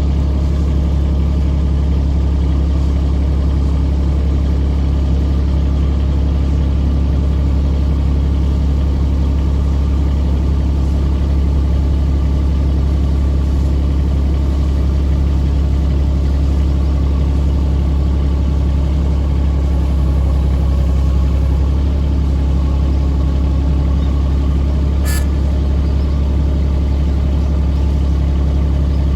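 Kubota excavator's diesel engine running steadily with a deep, even hum.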